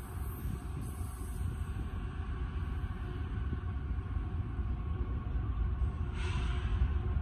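Low, steady rumble of a passing freight train, with a short hiss about six seconds in.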